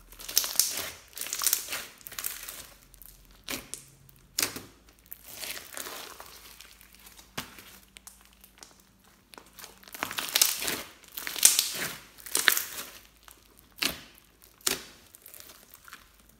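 Pink fluffy slime mixed with foam beads being squeezed, folded and stretched by hand: a run of crackling, squelching bursts as trapped air pockets pop, with a few sharp pops along the way.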